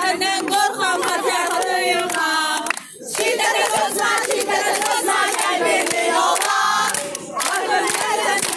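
A crowd of marchers, many of them women, singing a protest chant together in unison, with hand clapping. The voices break off briefly about three seconds in and again near seven seconds.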